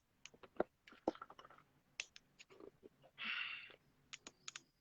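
Faint scattered clicks and light handling noises, with a short breathy hiss a little past three seconds in.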